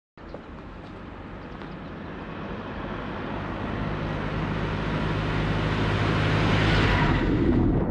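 Farm tractor pulling a slurry tanker, coming towards the camera along a road: steady engine hum and tyre noise grow louder throughout and are loudest near the end as it drives over the camera.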